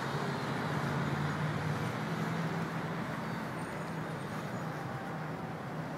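Steady city road traffic: vehicle engines running together as one continuous noise with a low engine drone.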